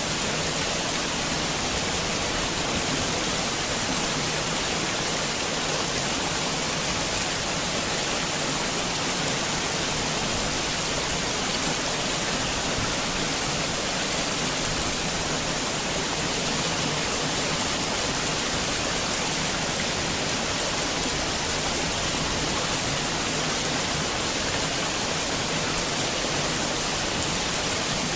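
Heavy rain falling in a steady, even downpour, with no thunder.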